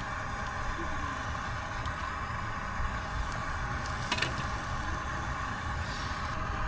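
Strong wind buffeting the microphone, a rumble that rises and falls, over a steady hum, with one sharp click about four seconds in.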